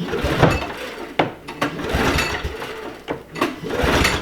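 Small snowmobile engine being pull-started: the recoil starter rope is yanked over and over, with the engine turning over with each pull.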